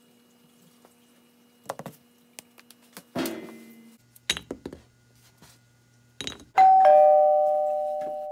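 Two-tone ding-dong chime: a higher note and then a lower one a moment later, both ringing out in a long fade. Before it come a few scattered knocks and a metallic clank with a short ring.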